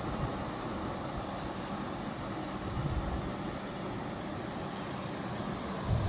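Steady rushing of a fast-flowing river running over shallow rapids.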